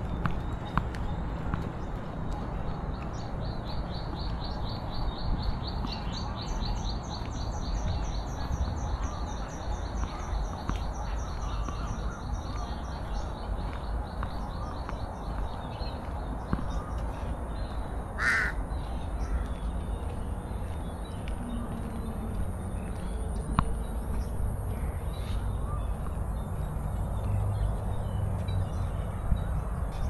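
Birds calling over a low, steady outdoor rumble: a rapid high trill runs from about three seconds in until about halfway, and a single short, harsh caw-like call sounds about eighteen seconds in. A faint steady high-pitched hiss runs underneath.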